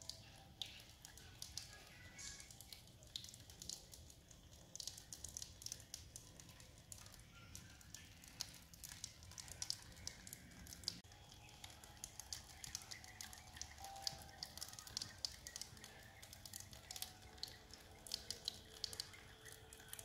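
Small tabletop cement water fountain running: water trickling over its curved tiers and falling in thin streams from three spouts into the basin, a faint, irregular patter of small splashes.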